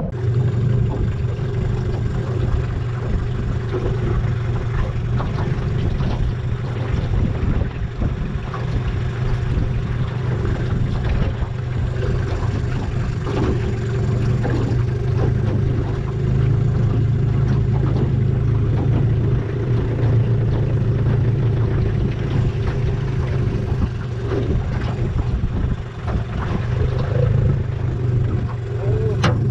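Small boat's outboard motor running steadily under way at an even speed, with a rush of wind and water noise over it.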